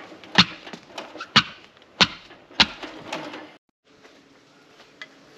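Four sharp knocks or thumps, each with a brief ring, spaced about half a second to a second apart, then the sound cuts off abruptly and only a quieter steady background is left.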